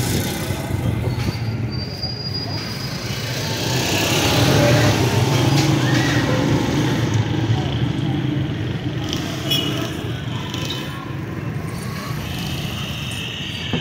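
Busy street ambience: a steady low hum of vehicle engines and traffic, with people talking in the background.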